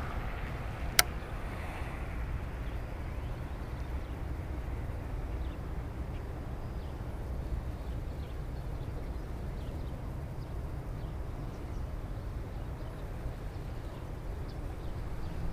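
Steady low outdoor rumble with one sharp click about a second in.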